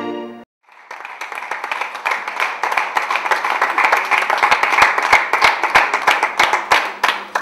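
Audience applauding, many hands clapping and growing a little louder, after a short tail of music that stops within the first half second.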